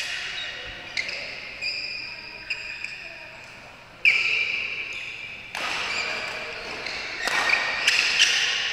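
Badminton rackets striking a shuttlecock in a doubles rally: sharp hits about once a second for the first few seconds. After a sudden louder stretch of noise in the middle, two quick hits come near the end as a new rally starts.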